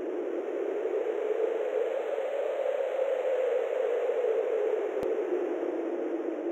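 Steady hiss of noise like radio static, heaviest in the low middle range, with one sharp click about five seconds in.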